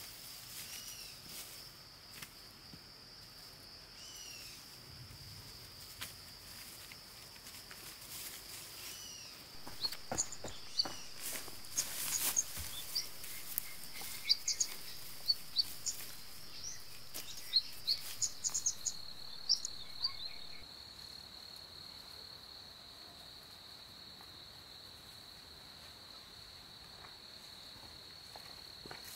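Steady high-pitched drone of forest insects, with a few short bird chirps in the first half. Between about 10 and 20 s in comes a scatter of sharp clicks and knocks; the drone drops slightly in pitch near the end.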